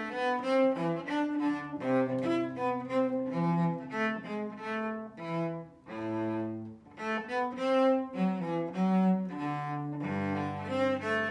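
A solo Kallo Bartok cello, Stradivari pattern, strung with Larson A and D and Spirocore G and C strings, bowed in a flowing melodic passage of several notes a second. Near the end a low note is held under moving higher notes. The instrument is brand new and not yet played in.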